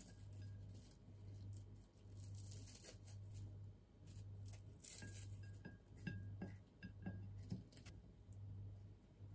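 Fingers crumbling Weetabix cereal and handling food in a glass container, with light clicks and small clinks against the glass, most of them in the second half. Faint background music with a soft, repeating bass runs underneath.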